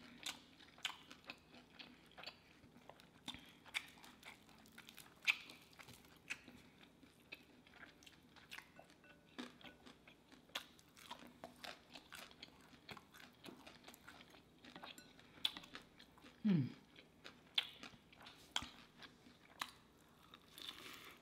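Chewing and biting on crunchy fried chicken wings: many small crisp crackles and crunches at an irregular pace. About sixteen seconds in there is a short hum that falls in pitch.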